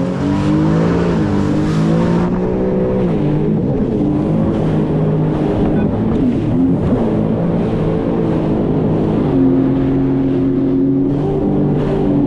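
Sea-Doo FishPro Sport 170 personal watercraft under way, its engine running under throttle. The engine pitch wavers up and down for the first nine seconds or so, then settles to a steady cruise.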